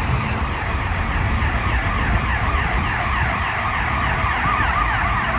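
Fire truck's electronic siren on a fast yelp, sweeping up and down several times a second, over the low rumble of the truck's engine.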